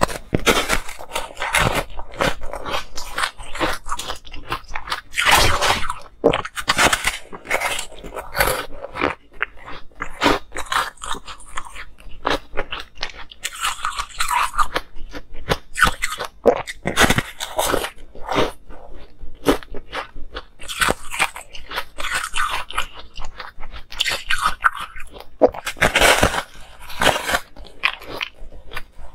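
A person biting off and chewing pieces of ice, with dense, crisp crunches coming in quick runs and short pauses between bites.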